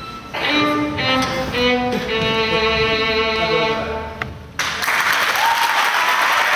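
Solo violin playing the closing phrase of a piece, its last note held and fading. About four and a half seconds in, applause breaks out and carries on.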